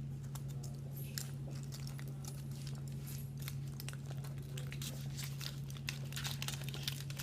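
Kinder Surprise egg being unwrapped and broken open: irregular small crackles and clicks of foil and chocolate shell, over a steady low hum.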